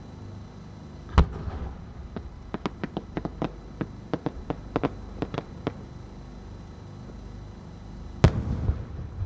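Aerial firework shells bursting: a loud boom about a second in, then a quick string of sharp pops over the next few seconds, and another loud boom near the end with a rumbling echo.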